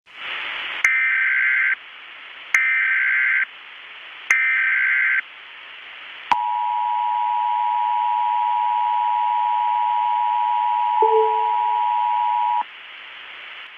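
Emergency Alert System tones over steady static hiss: three short bursts of SAME header data tones, about a second each, then the two-tone attention signal (853 and 960 Hz), a steady dual-pitched tone lasting about six seconds that cuts off suddenly. It signals an emergency broadcast warning.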